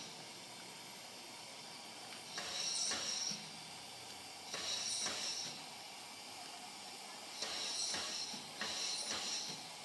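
A standing steam locomotive, WD 75196, hissing steam in four short bursts of under a second each, with a steady softer hiss between them.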